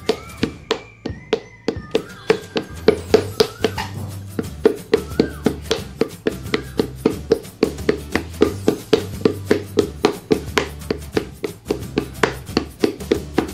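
Flat paddle beating the wall of a clay pot to enlarge and shape it, a quick, even run of dull slaps about four a second. Background music with a low bass line plays underneath.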